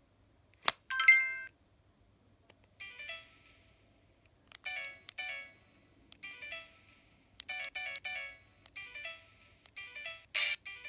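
Samsung SGH-E900 mobile phone playing one of its built-in ringtones: a bell-like melody of short chiming notes in repeated phrases, starting about three seconds in. A sharp click and a brief chime come just before it, near the start.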